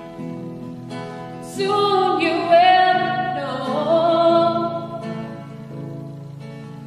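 Music: a voice singing long, wavering notes over plucked acoustic guitar, the voice coming in about a second and a half in.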